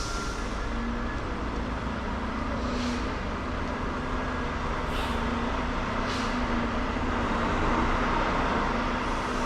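Tractor-trailer truck's engine running steadily, with a few faint short hisses along the way.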